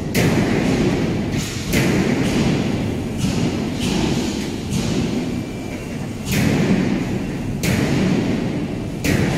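Loud, heavy thuds repeating about every second and a half, each ringing on for a moment before the next: impacts in a steel-fabrication workshop.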